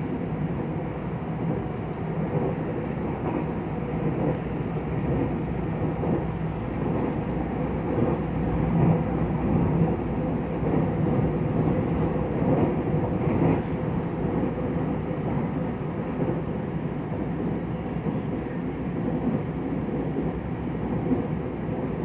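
Running noise inside a Taiwan Railway EMU900 electric multiple unit travelling at speed: a steady rumble of wheels on rail with a steady low hum.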